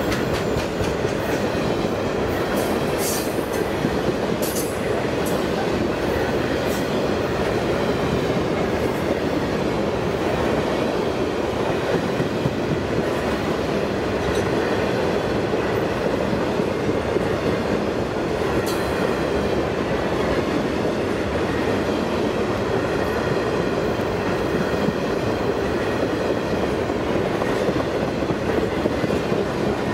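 Covered hopper wagons of a long freight train rolling past: a steady rumble and clatter of steel wheels on the rails. A few short high squeaks come at about 3, 4.5 and 19 seconds in.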